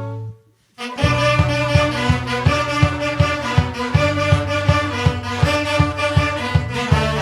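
Brass-led instrumental music: a held chord cuts off, a brief pause, then a lively tune with a steady beat of about three strokes a second.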